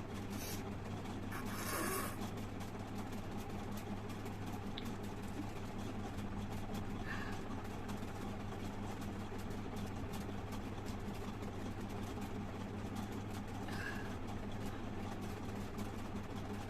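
A person spitting into a plastic glass: one short spit about one and a half seconds in, with two fainter small sounds later. Throughout there is a steady low hum.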